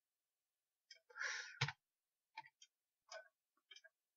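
Faint, scattered clicks of a computer mouse and keyboard: one sharper click about one and a half seconds in, just after a short soft noise, then a few fainter clicks.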